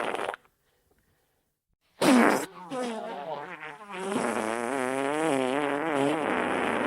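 Wet fart sound effects. One cuts off shortly after the start. After about a second and a half of silence, another begins with a loud burst, turns into a long, wavering, pitched flutter, and then becomes a steady wet sputter.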